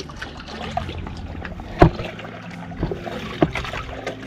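Water splashing and lapping against a sailboat's hull as a swimmer scrubs the waterline with a sponge, with a few sharp slaps of water, the loudest just under two seconds in.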